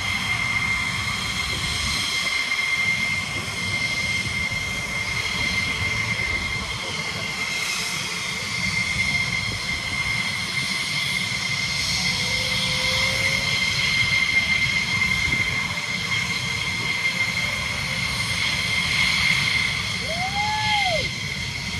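F-16 Fighting Falcon jet engines running on the ground, a steady high-pitched whine over a low rumble.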